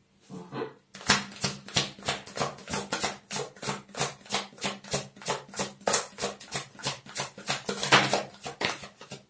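Tarot cards being shuffled by hand, a quick, even run of soft card slaps and riffles, about four a second, starting about a second in.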